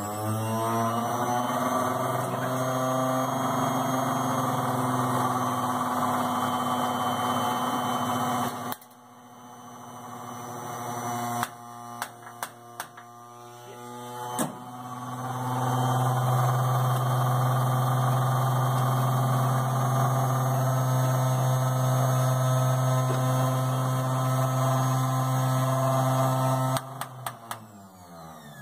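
1975 Massey Ferguson 285's four-cylinder diesel engine running steadily after a start, then stopping abruptly about nine seconds in. A few sharp clicks follow. The engine then starts again, rising to a steady run, and stops near the end, winding down.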